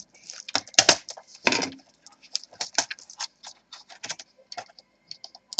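Irregular plastic clicks and snaps as a Dell Inspiron N5010 laptop keyboard is pried out of its retaining clips with a sharp tool and lifted from the chassis. The loudest snaps come about a second in and at about one and a half seconds.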